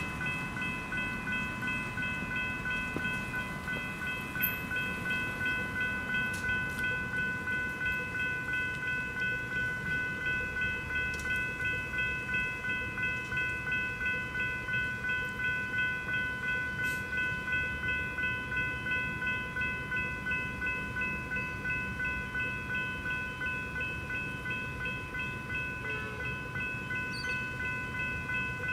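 Level crossing electronic bells (General Signals E-bells) ringing continuously, a rapid, even repeated ding, sounding the crossing's warning that a train is approaching.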